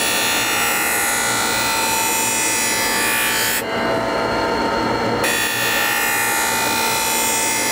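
Blackstone Spinner skate-sharpening wheel grinding the steel blade of a hockey skate as it is drawn across the wheel in a jig, a harsh hiss over the machine's steady hum. The grinding pass stops a little over halfway through, leaving only the running wheel, then starts again for a second pass about five seconds in.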